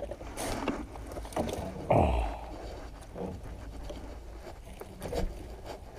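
Handling noise from a wire-rimmed landing net as a crab is freed from it: mesh rustling and scraping with scattered small clicks, and one dull thump about two seconds in.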